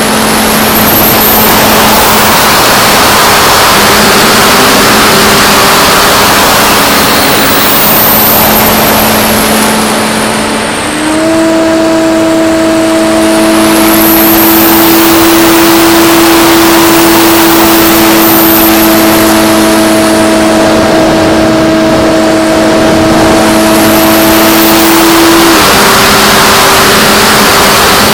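Onboard audio of a Mako flying wing in flight: the electric motor and propeller whine steadily under loud wind rush. The whine steps up in pitch and grows stronger about eleven seconds in, as when the throttle is opened, and drops back near the end.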